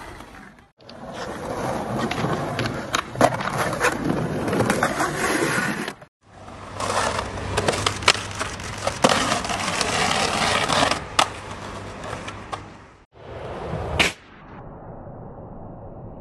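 Skateboard wheels rolling on concrete, with sharp clacks and cracks of board pops and landings. The sound cuts off abruptly a few times and starts up again, and one loud crack comes near the end.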